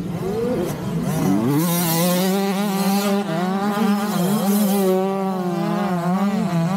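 Small-displacement mini dirt bike engine revving up over the first second or so, then held at high revs with small rises and dips in pitch.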